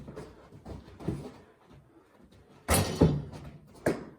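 A basketball banging during indoor play: a few soft thumps, then two hard bangs about two and a half to three seconds in and a sharp knock near the end.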